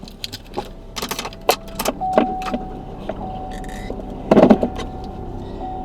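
Clicks and rattles of handling inside a car, with keys jangling: a quick run of sharp clicks, then a steady hum setting in about two seconds in, and a louder clatter about four and a half seconds in.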